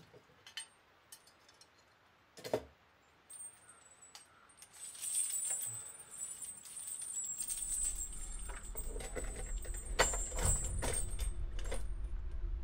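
Small brass bells and ornaments jingling and clinking as they are handled: a few separate clinks at first, then a continuous shimmering jingle from about three seconds in. A low rumble builds up under it from about halfway.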